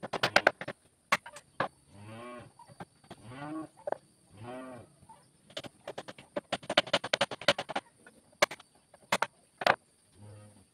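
Hammer strikes on a wooden chair frame, coming singly and in quick runs; the loudest are at the start. A cow moos four times in the background, and a faint steady insect whine runs underneath.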